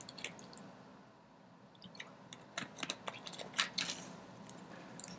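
Plastic water bottle being handled for a drink: faint, scattered clicks and crinkles of the bottle and its cap.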